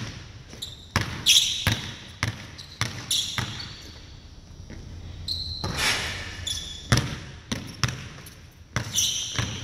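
Basketball dribbled on a hardwood gym floor, with sharp bounces at an irregular pace of about one to two a second. Several short high squeaks come from sneakers gripping the wood as the player plants and pivots.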